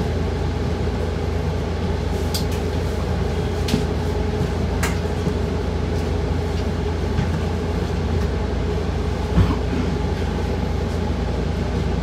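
New Flyer Xcelsior XDE40 diesel-electric hybrid bus under way, heard from inside: a steady drone of drivetrain and road noise. A few sharp clicks and rattles come through it, the loudest a little over nine seconds in.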